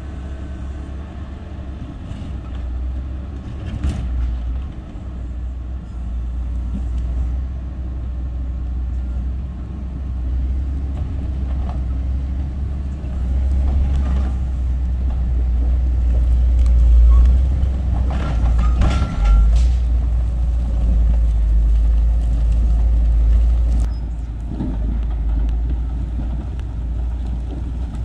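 Caterpillar 140M motor grader's diesel engine running with a steady deep rumble, swelling louder toward the middle as the machine works closer along the rocky road. A few short knocks of stone sound over it.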